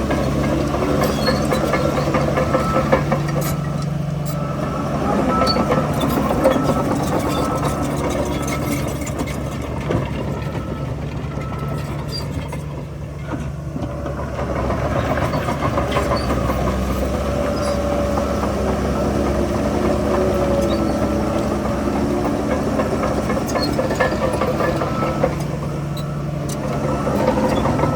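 Diesel engine of heavy earthmoving equipment running under load, easing off briefly about halfway through and then picking up again.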